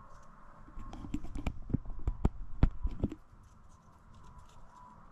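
Gimbal box and packaging being handled during unboxing: a quick run of about a dozen light knocks and clicks over about two seconds, a few of them sharper.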